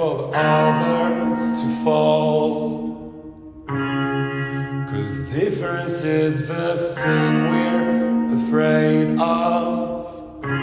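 Live band playing a slow song: sustained, reverberant chords that change every second or two, with wordless vocals and a brief drop in the sound about three and a half seconds in.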